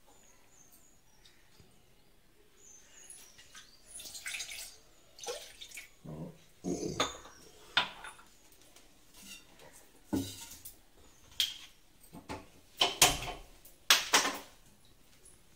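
Steel saucepan and small cups being handled and set down on a kitchen counter: a scatter of irregular clinks and knocks, starting about four seconds in and loudest near the end.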